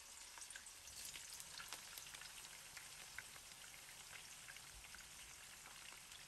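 Shrimp frying in hot cooking oil in a pan: a faint, steady sizzle dotted with scattered small crackles and pops.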